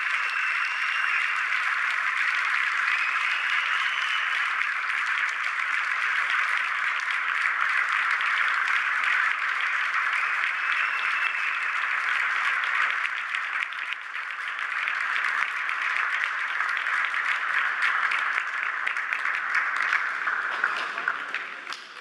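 Audience applauding steadily, with a brief dip about two-thirds of the way through, fading out near the end.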